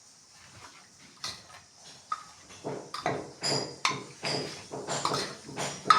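Metal utensil stirring and knocking against a cooking pot: a few faint clicks, then from about halfway in a run of ringing clinks, about two to three a second.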